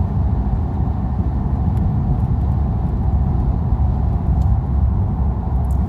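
Steady low rumble inside the cabin of a 2013 Dodge Dart with its 1.4-litre turbo four-cylinder engine running.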